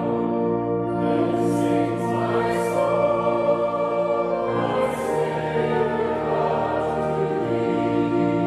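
A choir singing slowly. It holds long chords that shift twice, and soft hissing 's' sounds from the words come through now and then.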